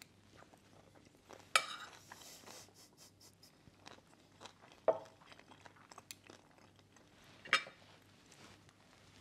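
Fork and spoon clinking against a plate while eating rice: three sharp clinks a few seconds apart, with faint eating sounds between.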